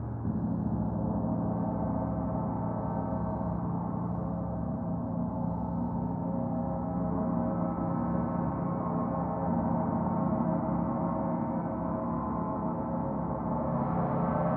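Several gongs ringing together in a dense, sustained wash of overlapping tones. The sound swells just at the start and grows a little brighter near the end.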